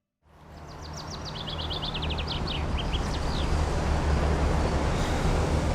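Outdoor city ambience fading in: a steady low traffic rumble, with a small songbird chirping a quick run of short high notes during the first few seconds.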